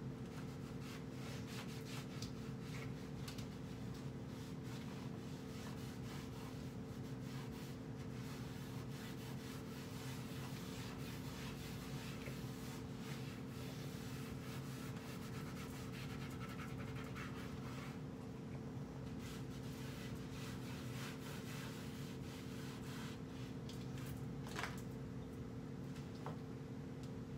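Cloth wiping and rubbing against a wooden kitchen cabinet in soft, irregular scratchy strokes, over a steady low hum, with a light tap near the end.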